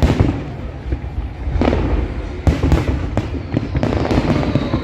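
Aerial fireworks display: many sharp bangs in quick succession over a low rolling rumble, with a thicker run of bangs about three seconds in.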